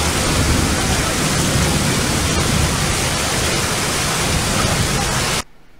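Heavy downpour on a flooded street: a steady, even rushing hiss of rain that cuts off abruptly near the end.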